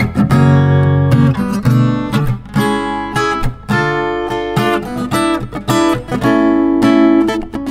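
Gusta GMX-130E mini acoustic-electric guitar, with a solid spruce top and laminate rosewood back and sides, played in a run of plucked notes and chords that ring on between attacks.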